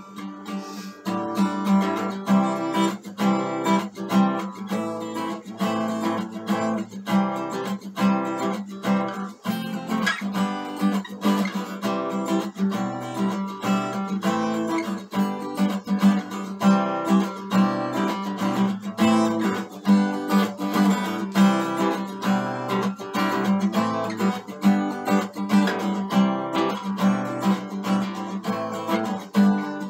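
Acoustic guitar strummed in a steady rhythm of chords, starting up after a short pause right at the beginning.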